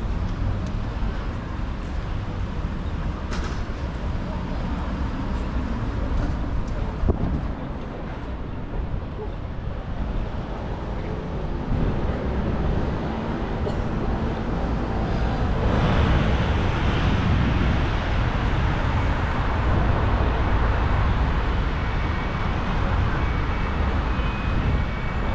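Traffic noise of a busy city street, with motor vehicles passing steadily. There is a sharp knock about seven seconds in, and the traffic grows louder from about the middle on.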